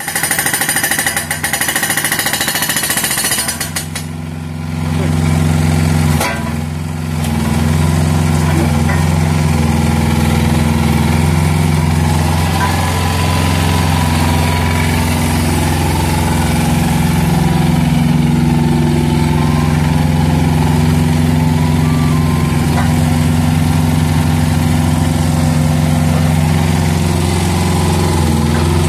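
Hydraulic breaker on a Hanix HO8 mini excavator hammering rapidly for about the first four seconds, then stopping. After that the excavator's two-cylinder diesel engine runs steadily, with a single knock about six seconds in.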